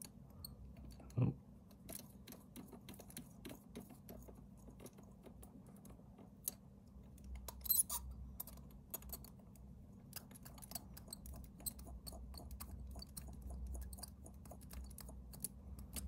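Faint small clicks and taps of plastic pen parts and a small glass ink bottle being handled while a fountain pen is filled through its converter, with a short louder knock about a second in.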